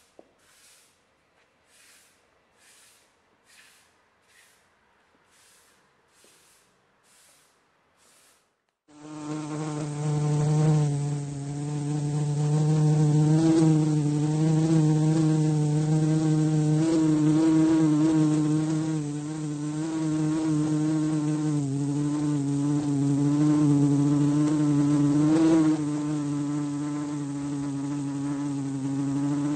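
Faint strokes of a hand rubbing over a floor, about two a second, for the first nine seconds or so. Then a loud fly buzzing starts suddenly and keeps on, steady with a slight wavering in pitch.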